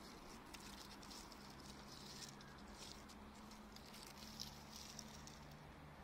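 Near silence, with faint scattered light ticks and crackles and a faint steady low hum.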